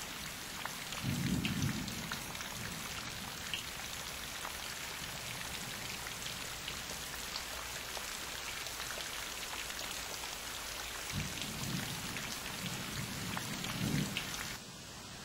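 Steady rain with scattered drops ticking, and low rumbles of thunder about a second in and again from about eleven seconds, the last one loudest just before the sound drops away suddenly near the end.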